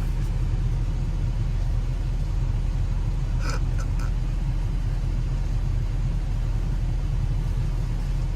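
Ford F-350 pickup's engine idling with a steady low rumble, with one brief faint sound about three and a half seconds in.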